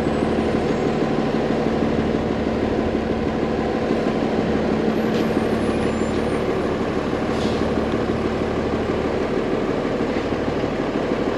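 Steady street noise of a large vehicle's engine running nearby, with a steady low hum that fades out about six and a half seconds in.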